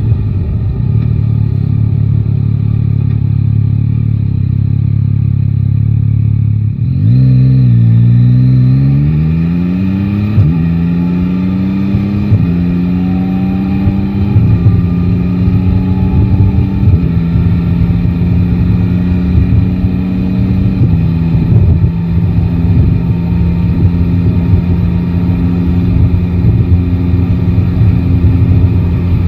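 Yamaha Tracer 9 GT's inline-three engine running steadily at low revs, then accelerating about seven seconds in: the pitch climbs and drops back at each of about five upshifts before settling to a steady cruise.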